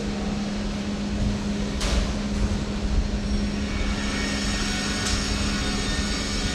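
A steady mechanical drone: a constant low hum over a rumble, with a short sharp noise about two seconds in and again about five seconds in.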